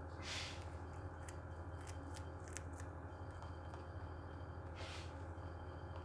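Rabbit chewing a piece of carrot: a handful of small crisp crunches in the middle, between two short soft rustles, over a steady low hum.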